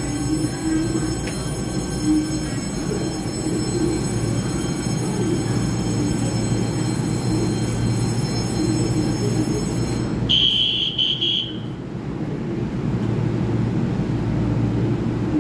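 Taiwan Railway EMU3000 electric multiple unit standing at the platform, its equipment humming steadily with a high whine. Just after ten seconds in, a shrill tone sounds for about a second, and the high whine then falls away.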